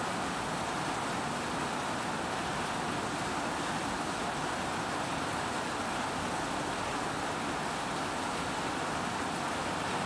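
Steady rain falling, an even hiss that does not change, with no thunder.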